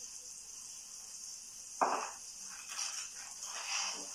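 Vegetables frying in a pan with a faint steady sizzle. A single knock about two seconds in, then a few softer clatters of kitchen things being handled.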